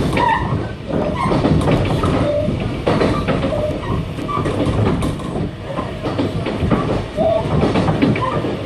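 Kintetsu train running on its rails: a steady, loud rumble with scattered clicks and knocks.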